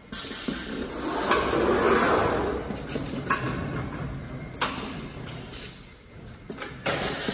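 Automatic jug palletizer working as its gripper sets plastic jugs onto the stack: a rubbing, hissing mechanical noise swells over the first couple of seconds and dies away near the end. Four sharp clicks are spread through it.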